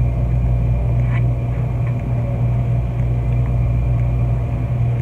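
Steady, loud low machine hum with no break, with a few faint clicks above it.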